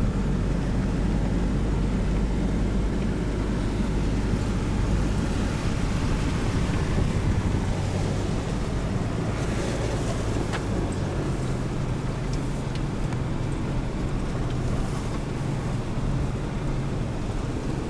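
Four-wheel drive driving through a stony creek crossing: steady engine and tyre rumble with rushing, splashing water and some wind noise on the microphone.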